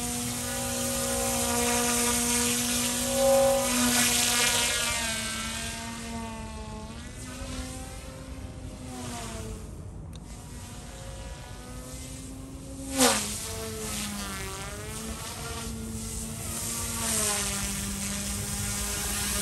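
Eachine E120S direct-drive micro collective-pitch RC helicopter flying: a high whine from its motors and rotor that holds steady, then glides up and down in pitch as the load changes in aggressive 3D manoeuvres. About 13 seconds in comes a short loud burst, the pitch jumping up and then dropping.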